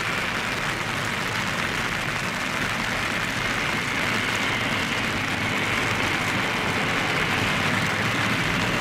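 Steady rushing noise of heavy rain mixed with the jet engines of a Boeing 787 Dreamliner on final approach, growing slowly louder as the airliner comes closer.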